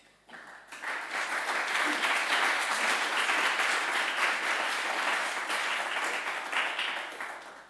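Small audience applauding, building up within the first second and dying away near the end.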